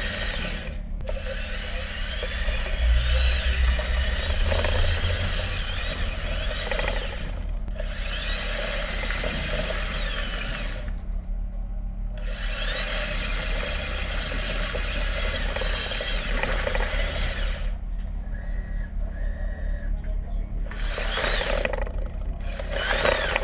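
Electric drive motors of a tunnel-inspection robot whining as it crawls along a pipe. The pitch rises and falls as the motors speed up and slow down, and the whine stops briefly several times. A steady low hum runs underneath.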